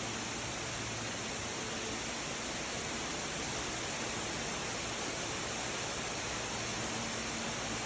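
Floodwater rushing steadily, an even hiss with a faint low hum beneath it.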